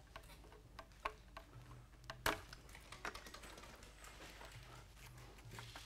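One-way security screw being turned into a wooden board by hand with a flathead screwdriver, the screw lubed with drill lube. Faint, irregular clicks and ticks as the screwdriver turns, with one sharper click a little past two seconds in.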